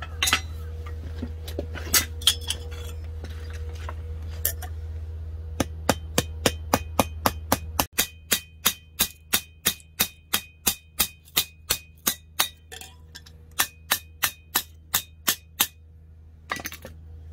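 A hammer peening metal rivet pins over on a layered steel axe head set on an anvil block. After a few scattered taps, a long run of quick metallic strikes follows at about three a second, each with a short ring, with one brief pause.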